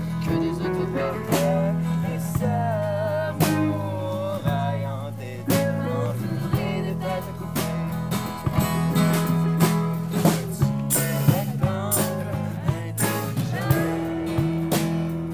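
Live folk-rock band playing: strummed acoustic guitar over electric bass, with a singing voice and a steady beat of sharp strokes.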